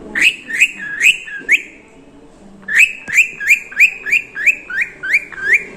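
Green ringneck parrot (rose-ringed parakeet) giving a run of sharp, repeated calls: four in quick succession, a pause of about a second, then about nine more at roughly three a second.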